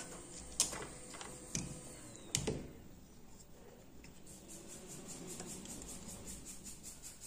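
A few sharp clicks and knocks of a smartphone logic board being handled and taken out of a metal PCB holder clamp on a repair bench. In the second half, a run of faint, evenly spaced ticks comes at about five a second.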